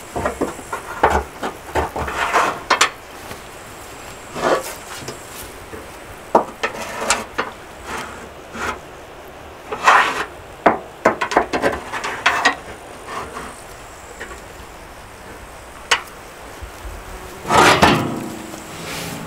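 Metal spit rods clanking, knocking and scraping against a steel barrel smoker as skewered whole chickens are fitted into it. The knocks come irregularly, with a longer scraping cluster near the end.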